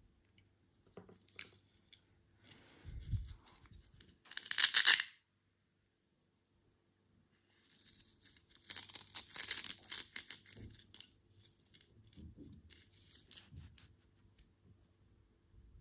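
Candy packaging being torn open by hand: one short, loud rip about four seconds in, then a longer stretch of crinkling and tearing, with softer handling sounds after.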